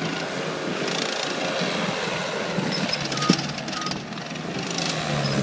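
Caterpillar 277B multi-terrain loader's diesel engine running under load while the machine works, with a sharp clank about three seconds in.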